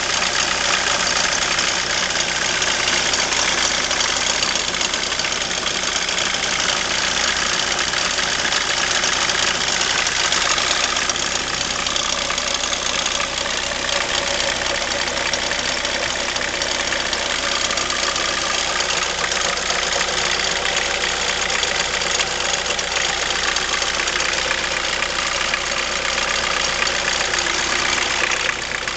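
BMW E36 318tds four-cylinder turbodiesel idling steadily, with the strange, annoying noise that the owner hears at idle from the front of the engine and has not yet traced.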